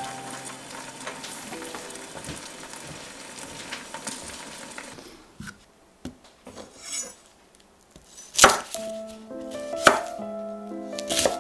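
A covered stainless pan simmering with a steady soft sizzle for about the first five seconds. Then the sizzle is gone; a few small clicks and light crackles follow, and near the end a chef's knife strikes the wooden cutting board twice, sharply, about a second and a half apart, as the shallot is trimmed. Soft background music with held notes under the cutting.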